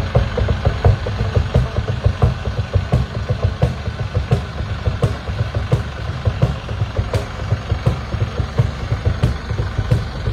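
Tractor diesel engine running at low idle as the tractor creeps along, a steady low rumble with an even knocking beat.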